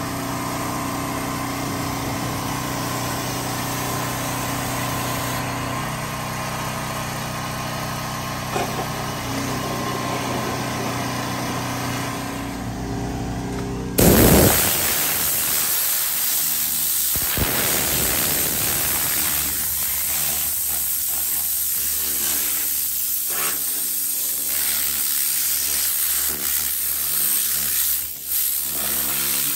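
A small engine runs with a steady hum under spray hiss. About halfway through, a compressed-air blow gun cuts in with a sudden loud blast and then a continuous hard hiss as it blows over leather seats and door trim, with short breaks as it moves.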